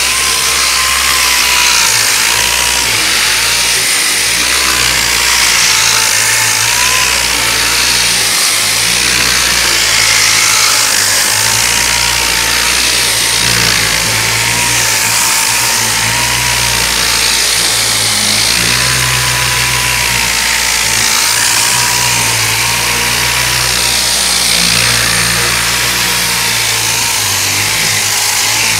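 Power sander running steadily as it sands body filler on a car door: an even hiss of abrasive on filler over the motor's whine, which wavers slightly in pitch.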